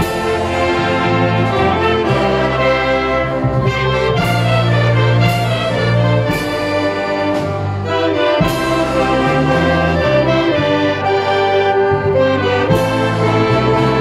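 A symphonic wind band playing: clarinets and saxophones over brass and tubas in sustained chords, with a bass line that moves every second or so. Sharp percussion hits ring out several times.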